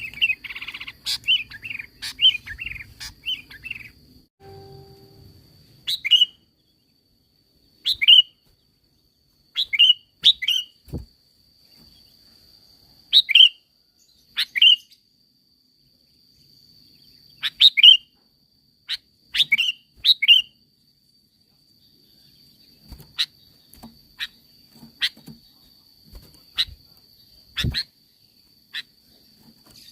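Sooty-headed bulbul (kutilang) calling: a quick chattering run of notes for the first few seconds, then short, sharp upslurred calls every second or two, often in pairs. A faint steady high whine runs behind them.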